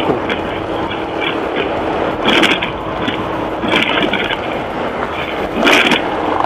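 Riding noise from a motor scooter at low speed: wind rushing over the helmet-mounted microphone and road rumble over a faint steady engine hum, with three louder bumps partway through.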